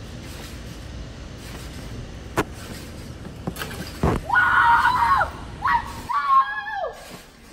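A sharp knock about two and a half seconds in and a heavy thud about four seconds in as a basketball is played on a trampoline, followed by a boy yelling loudly in a few shouts, the last one falling in pitch.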